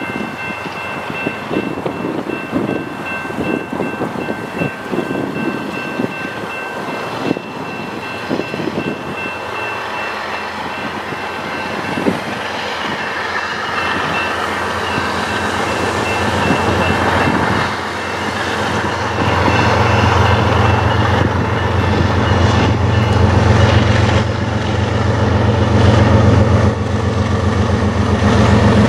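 Diesel locomotives of a BNSF coal train approaching and passing under power: a GE ES44DC leading EMD SD70MACs. The train's noise grows steadily louder, and from about two-thirds of the way through the engines' deep drone becomes the loudest sound.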